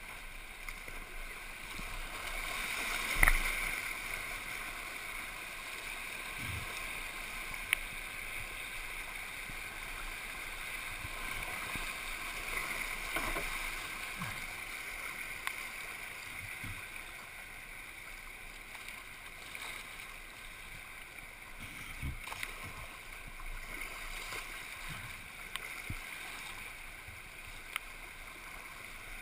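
Rushing floodwater washing past a kayak in a steady stream of water noise, with a few sharp knocks, the loudest about three seconds in.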